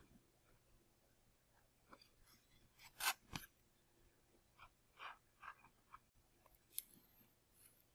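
Faint handling noises of foam model parts on a workbench: a few soft clicks and rubs, the sharpest a pair of clicks about three seconds in, as a glued wing is fitted to the fuselage.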